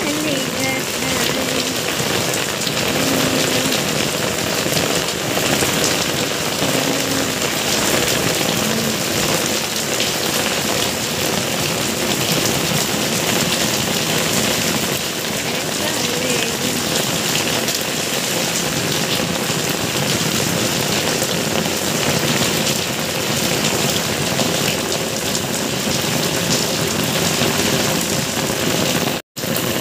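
Steady rain falling and splashing on a wet concrete yard, cutting out for a moment near the end.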